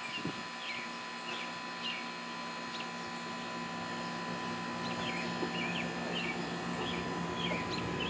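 Small birds chirping, short high chirps coming in little clusters several times a second, over a steady low hum.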